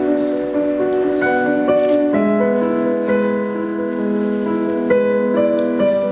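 Instrumental music: held keyboard notes overlapping in a slow melody, changing about every half second to a second, with no singing.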